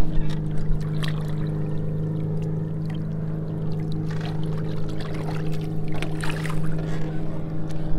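A boat's motor humming steadily at an even pitch, with a few light knocks about a second in, around four seconds in and between six and seven seconds in.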